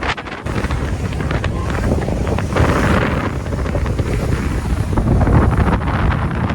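Wind buffeting the microphone on an open boat: a steady rushing rumble that thickens about half a second in.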